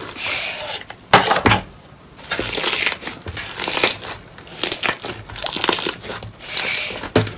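Slime being squeezed and pressed: a run of irregular crackling squelches with sharp little pops.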